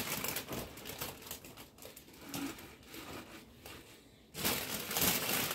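Plastic bag crinkling and fresh spinach leaves rustling as they are pulled out of the bag and pushed into a glass blender jug. It is quieter in the middle and grows loud again about four seconds in.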